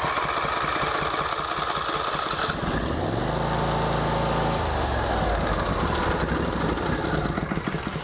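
Briggs & Stratton V-twin lawn tractor engine cranked by its electric starter, catching about three seconds in and revving up, then running and dying away near the end. It starts promptly with the choke lever held fully up, which closes the choke despite play in the loose choke linkage.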